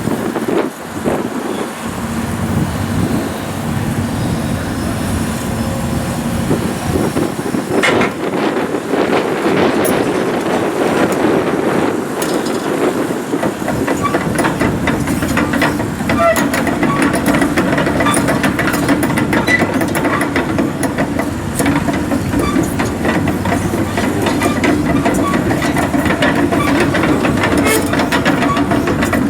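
Sany SY135C excavator running under load, its engine drone mixed with a dense, irregular rattle of metal clanks.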